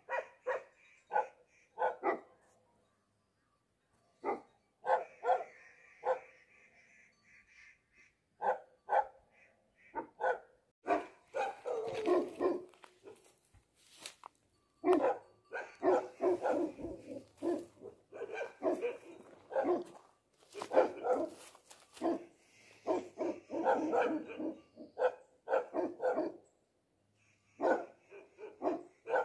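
Tibetan Mastiffs (Bhote dogs) barking in deep, resounding barks. The barks come one by one at first, then from about eleven seconds in they run together into near-continuous barking.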